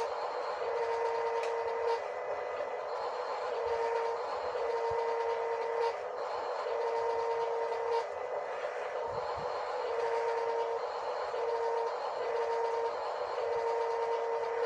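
Electronic sound effect from a toy excavator: a beeping tone switching on and off in an uneven repeating pattern over a steady hissing engine-like noise, with a faint click about every two seconds.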